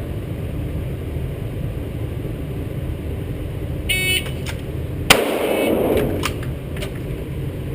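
Pocket Pro II shot timer gives its short high start beep, then about a second later a single loud 9mm shot rings out from a Glock 17C pistol drawn from the holster. A few fainter sharp cracks follow.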